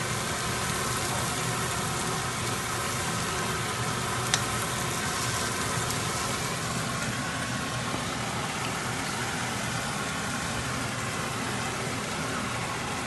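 Chicken and leftovers frying in a pan: a steady sizzle over a steady low hum, with one sharp clink about four seconds in.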